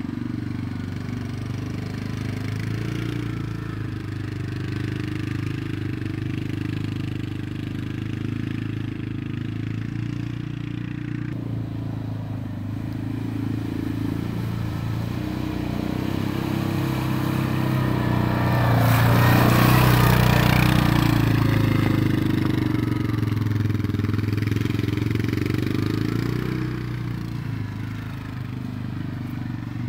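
ATV engine running and revving as the four-wheeler is ridden along a muddy trail, growing louder and peaking about two-thirds of the way through as it comes closest, then fading.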